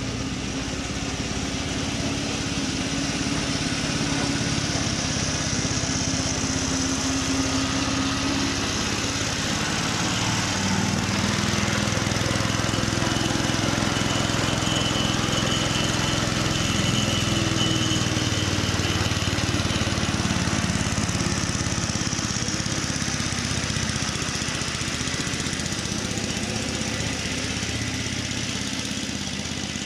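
Petrol engine of a Ransomes Marquis cylinder lawn mower running steadily, getting a little louder through the middle and easing off again near the end.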